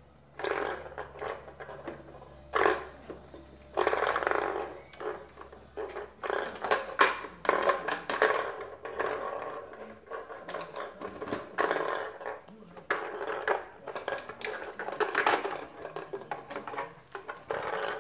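Plastic balls rolling and rattling around the track of a circular cat toy as kittens bat at them, in irregular bursts of clatter with a few sharper knocks.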